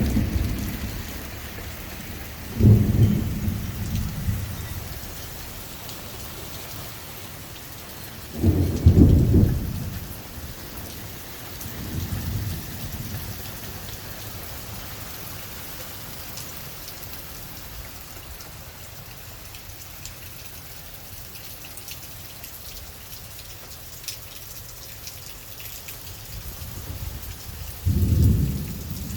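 Steady heavy rain, with thunder rumbling deeply several times: a loud peal a few seconds in, the loudest about a third of the way through, a weaker one soon after, and another near the end.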